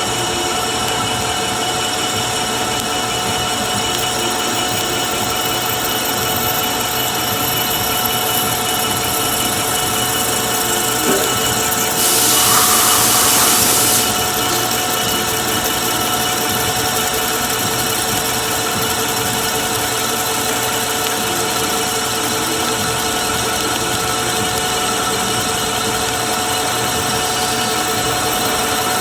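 Metal-cutting machine tool running steadily during machining, with a constant whine. A burst of hiss lasts about two seconds near the middle.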